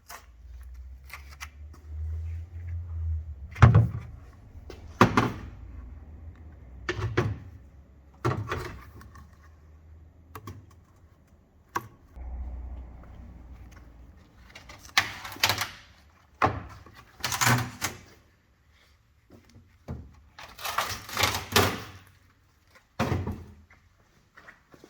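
A series of irregular knocks and thunks, with a few short scraping or rattling bursts and a low rumble in between.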